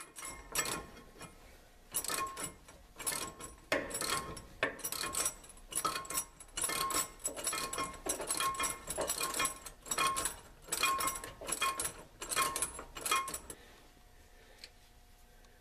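Hand socket ratchet clicking in quick runs of strokes as a nut is tightened on the air helper spring's mounting bracket. The clicking stops near the end.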